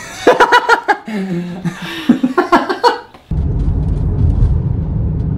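A woman laughing for about three seconds, then an abrupt change to the steady low rumble of a car's cabin noise while driving.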